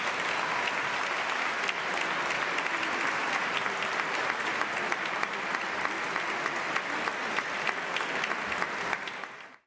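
Congregation applauding: steady clapping from many hands that fades out just after nine seconds in.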